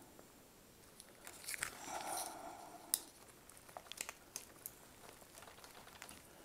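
Faint rustling and handling noise, with one sharper click about three seconds in and a few light ticks after it, as the power cord of a Rain Bird irrigation transformer is handled and plugged in.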